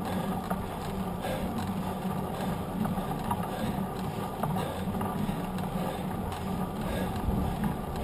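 Knobby mountain-bike tyre rolling fast on asphalt: a steady hum over a rushing noise, with a few faint ticks.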